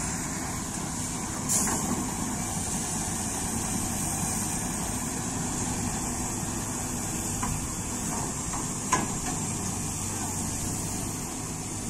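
Heavy diesel engine idling steadily, with a brief hiss about a second and a half in and a sharp click about nine seconds in.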